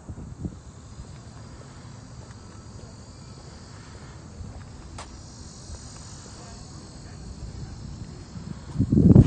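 Faint, steady chorus of insects, with low rumbling noise underneath and a loud burst of low rumbling near the end.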